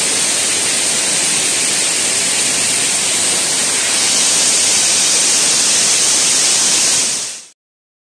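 Steady rushing hiss of a 50-metre, two-tier waterfall heard close up, brightening about halfway through. It fades out quickly near the end.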